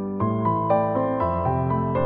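Background music: a gentle keyboard melody, with a new note about every quarter second.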